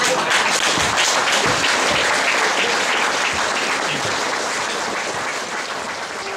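Theatre audience applauding at the end of a sketch, a dense steady clapping that slowly dies down over the last couple of seconds.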